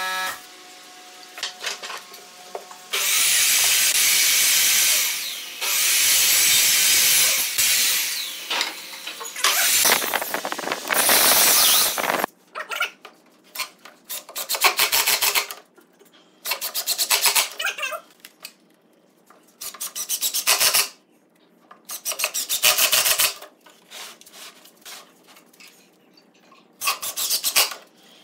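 Long, loud scraping on wood for the first third. After that, a cordless drill runs in short bursts of about a second, about six of them, each with a fast rattling whirr, as screws are driven through the base of the pine table legs.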